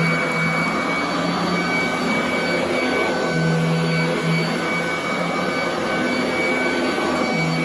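Royal commercial vacuum cleaner running steadily on carpet: a constant rush of air with a thin high whine, and a low hum that swells in and out a few times as it is worked.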